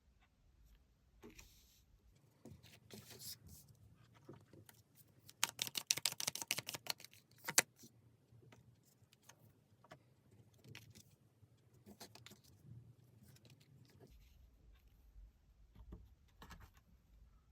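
Tarot cards being handled and shuffled: scattered soft clicks and rustles, with a burst of rapid card clicking about five seconds in, lasting about two seconds and ending in one sharp snap.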